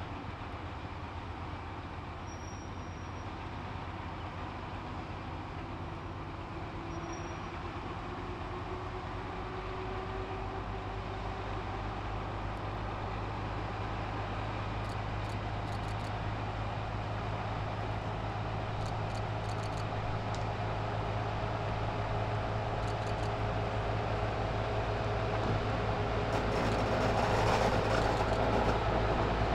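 Diesel engines of a 1941 GE 80-ton switcher locomotive running steadily as it pulls a passenger train slowly toward the listener. The sound grows steadily louder, with a few faint clicks from the wheels on the rails in the second half.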